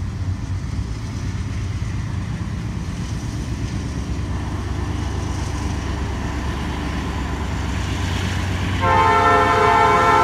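Low rumble of an approaching diesel freight train, slowly growing. About nine seconds in, the lead locomotive's Nathan P5 horn starts blowing, a loud chord of several notes held steady.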